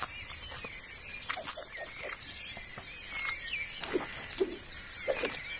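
Natural outdoor ambience: a steady high hiss with thin, wavering chirps and scattered soft clicks and rustles.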